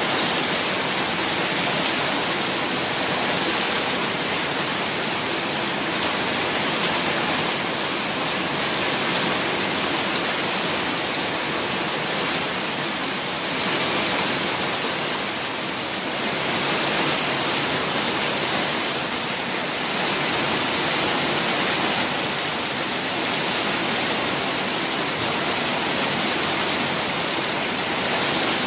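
Heavy-rain runoff gushing up in a thick jet and pouring over a concrete ledge into a flooded channel: a loud, steady rush and splash of water, easing slightly about halfway through.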